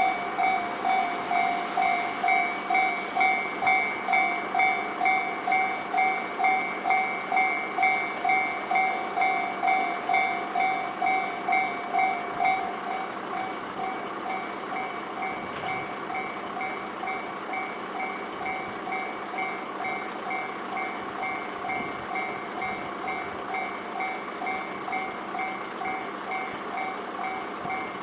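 Japanese railway level-crossing warning bell ringing its repeated ding, about two strokes a second. About halfway through it drops to a noticeably lower volume and keeps ringing.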